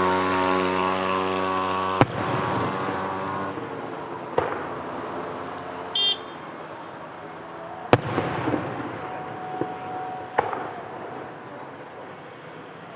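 Fireworks shells bursting: sharp bangs about two seconds in and again near eight seconds, with smaller pops and crackling between. A held chord of show music stops at the first bang.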